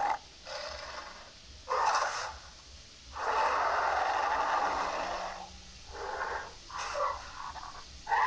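Baryonyx creature sound effect: a run of breathy snorts and hissing growls in separate bursts, with one long drawn-out growl from about three seconds in to near six seconds.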